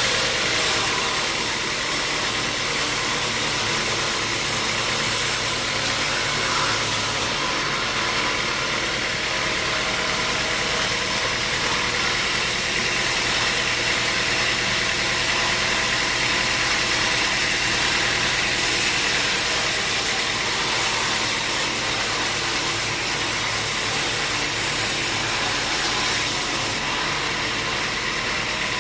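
Sawmill machinery running steadily, a motor drone with a high hiss that drops away about seven seconds in and comes back about eleven seconds later.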